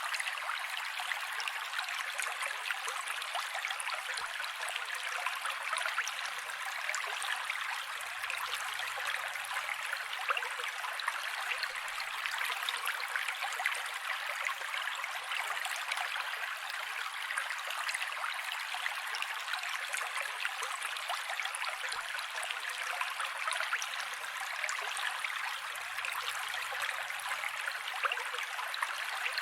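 Mountain creek running: a steady rush and trickle of water, even throughout, with no deep rumble.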